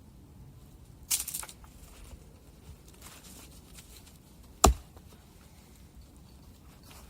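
A short crackling rustle about a second in, then a single sharp knock about four and a half seconds in, the loudest sound.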